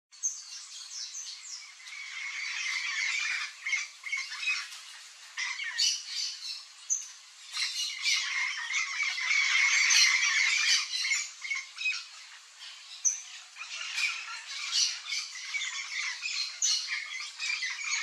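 Yellow-faced parrots squawking and chattering: a near-continuous run of harsh calls and short sharp notes, rising and falling in loudness.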